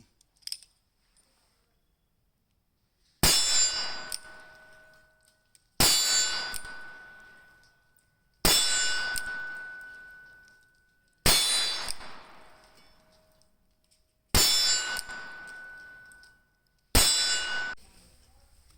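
Six shots from a Ruger Super Wrangler revolver firing .22 Magnum, each a sharp crack followed by a ringing clang from a struck steel target that dies away over about two seconds. The shots come about every two and a half to three seconds, starting about three seconds in.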